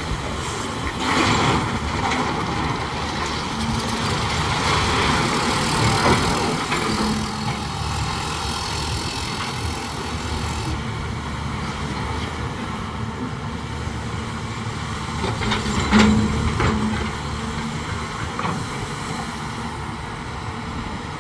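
Heavy diesel construction machinery running steadily, with a few sharp clanks. The loudest clank comes late on.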